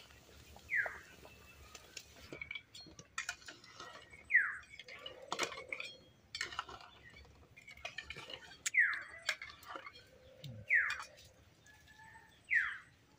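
A bird calling again and again, each call a short downward-sliding whistle, five times a couple of seconds apart. Between the calls come light clicks and clinks of a metal cooking utensil against a pan.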